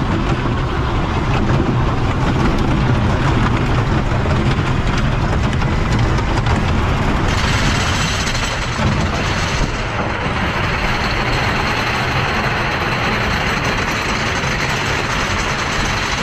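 Wooden roller coaster train rolling out of the station over its track with a steady low rumble. About seven seconds in the sound turns brighter and stays steady as the train engages the lift-hill chain and starts to climb.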